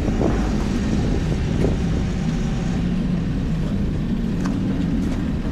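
A car running and driving, a steady low rumble of engine and road noise.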